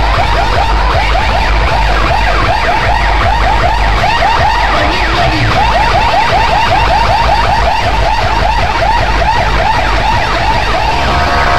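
Outdoor DJ sound system playing a siren-like alarm effect: rapid repeated rising chirps, about four a second, over heavy sub-bass.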